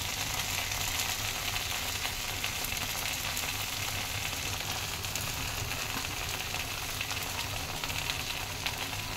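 Potato and eggplant sabzi sizzling in a kadhai on the stove: a steady frying hiss with faint crackles.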